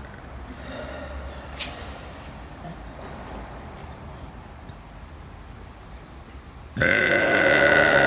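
Low background noise, then about seven seconds in a woman begins a loud, long belch at a steady pitch.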